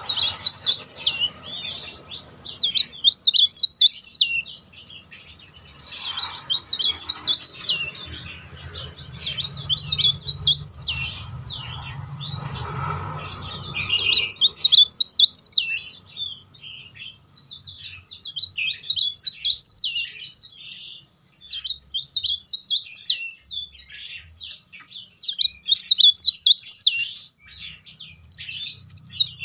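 Caged cikrak daun songbird singing loud, shrill whistled phrases of rapid trills, a burst every two to three seconds, over a faint steady high tone.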